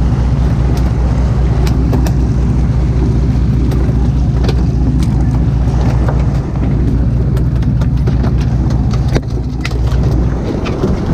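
Fishing boat's engine running steadily, a low drone, with scattered clicks and knocks on board.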